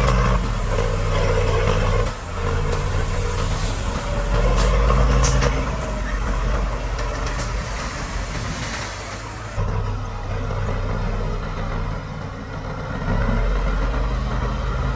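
Heavy diesel engines of earthmoving machines, bulldozer or dump truck, running under changing load, their pitch and loudness stepping up and down several times. There are a few short, sharp sounds in the first half.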